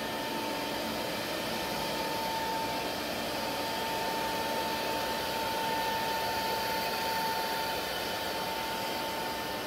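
Phantom S-Series 4x8 CNC router running steadily while surfacing the spoil board: a high spindle whine over a steady rush of noise.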